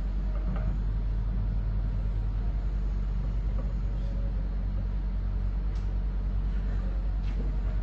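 Steady low hum at an even level, with a few faint light ticks.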